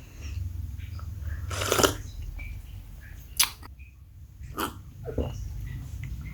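Someone drinking cold coffee: a few short gulping and swallowing sounds, the loudest about two seconds in, over a low steady rumble.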